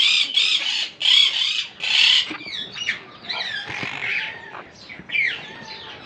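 Parrots squawking: about three loud, harsh screeches in the first two seconds, then softer chirps and squawks that slide up and down in pitch.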